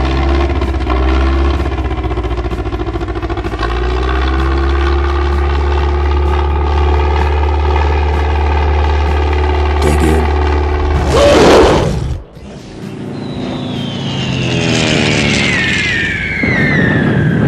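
Cartoon propeller-plane sound effect: a steady engine drone, then a loud whoosh about eleven seconds in, followed by a whistle falling in pitch near the end.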